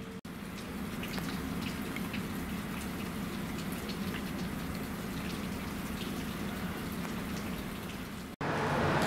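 Rain falling steadily, with scattered drops ticking on nearby surfaces over a faint low hum.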